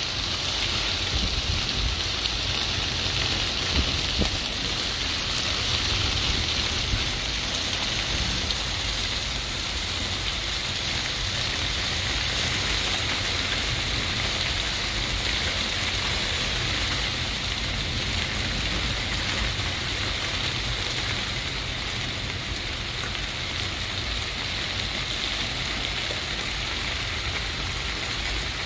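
Heavy rain pouring steadily onto a wet street and pavement during a thunderstorm, a constant hiss with a low rumble underneath.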